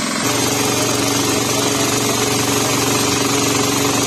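Small engine of a portable hydraulic power pack running steadily, with a fast, even pulse. It feeds the hydraulic rerailing equipment. The drone gets slightly louder and shifts in tone about a third of a second in.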